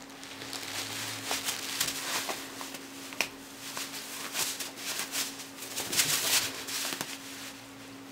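Cat scuffling with a cloth valerian pillow: irregular rustling and scratching of paws and claws on fabric, heaviest around six seconds in, over a faint steady hum.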